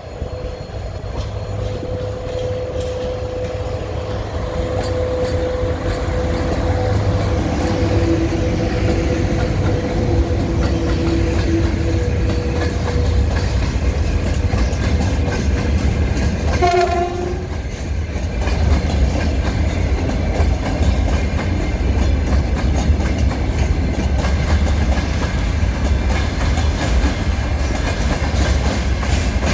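A VL80T electric locomotive and its freight train of gondola wagons and tank cars passing close by: a heavy, steady rumble of wagon wheels clicking over rail joints. Steady humming tones sound while the locomotive goes by in the first part. A brief sharp tone sounds about halfway through.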